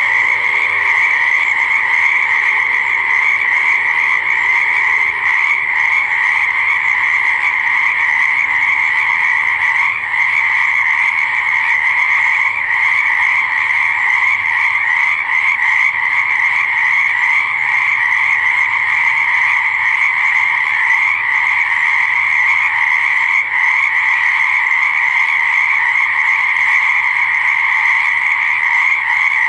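A chorus of frogs croaking continuously, many calls overlapping into one steady, unbroken mass of sound.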